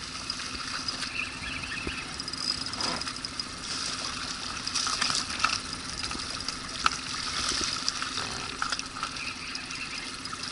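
Fast river water rushing and lapping around the boat, with scattered splashes as a hooked lenok thrashes at the surface. A faint steady low hum runs underneath.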